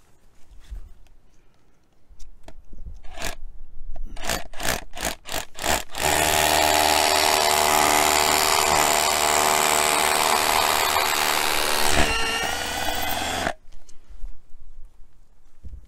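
DeWalt SDS hammer drill with a 6mm bit drilling a hole in a masonry gate pillar: several short bursts as the hole is started, then about seven seconds of steady drilling that stops abruptly.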